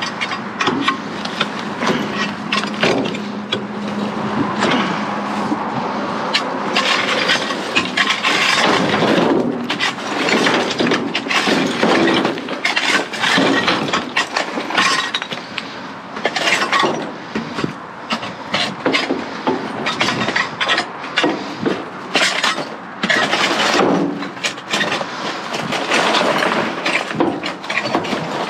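A garden tool prying and hacking at debris in a dumpster: irregular clanks, cracks and breaking sounds, many sharp hits in quick succession.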